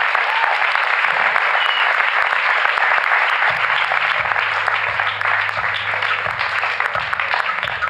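Audience applauding: dense, steady clapping that thins a little near the end. Low notes come in underneath about halfway through.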